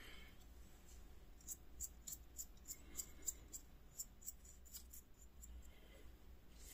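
Faint, quick ticking and light scratching of a paintbrush working finish onto small wooden spools on a dowel, about four light ticks a second for a few seconds, over a low room hum.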